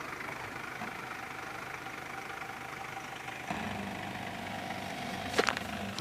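Mercedes Vito CDI diesel van engine running steadily, growing a little louder and deeper about three and a half seconds in. A sharp clatter about five seconds in is the loudest sound.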